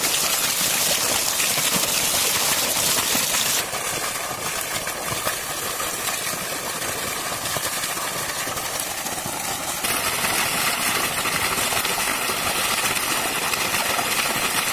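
Water gushing steadily from an irrigation pump's outlet pipe and splashing onto the ground and into a metal pot. The rush drops a little about four seconds in and comes back up about ten seconds in.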